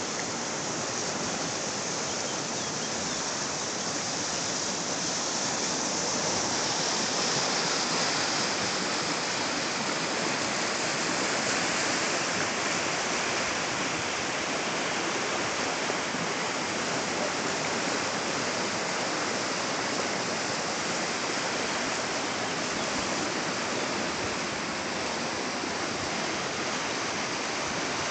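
Fast mountain river rushing over rocks in whitewater: a steady rush of water.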